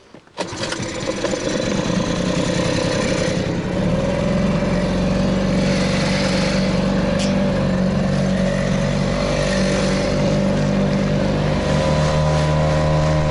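Small Mercury outboard motor on an inflatable boat starting up about half a second in and then running steadily as the boat gets under way. It gets louder about four seconds in, and its pitch shifts again near the end.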